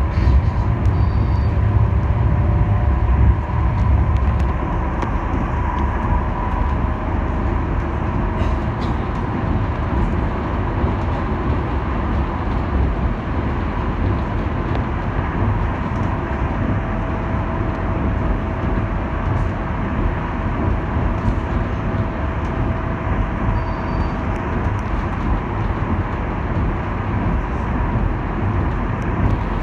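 Alstom Citadis Dualis tram-train running between stops: a steady rumble of wheels on rail with a few faint steady tones over it.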